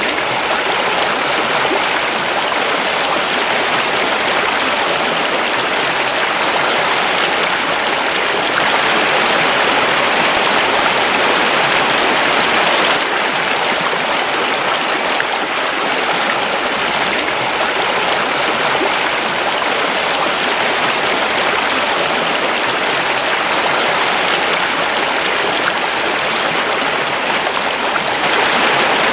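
River water flowing over rocks: a steady, dense rushing, swelling slightly for a few seconds near the middle.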